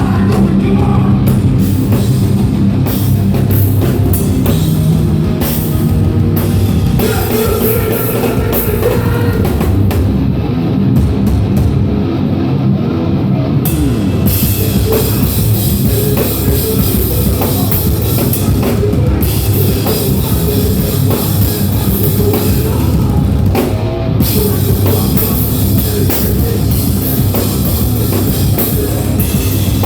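Hardcore band playing live: heavily distorted electric guitars, bass and a pounding drum kit in an instrumental stretch, the sound getting fuller and brighter about fourteen seconds in.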